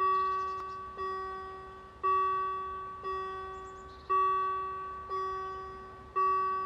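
Level crossing warning bell ringing at about one stroke a second, each stroke ringing out and dying away, every other stroke louder: the crossing is closing for an approaching train. A bird chirps briefly twice.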